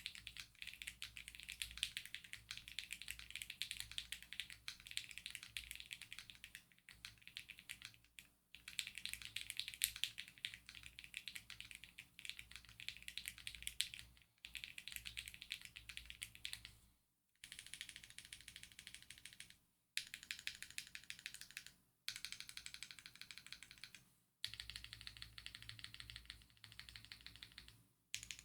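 Typing on a Monsgeek M3 aluminium gasket-mount mechanical keyboard fitted with lubed Akko V3 Cream Blue tactile switches and PBT keycaps: fast, dense key clicks. They come in several separate passages, each of which stops abruptly.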